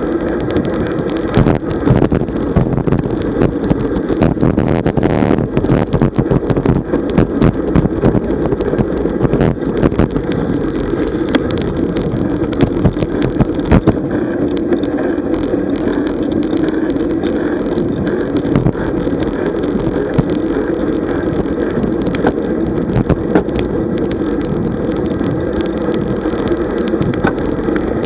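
Wind rushing over the microphone of a camera mounted on a moving road bike, with steady road noise and frequent small knocks and rattles.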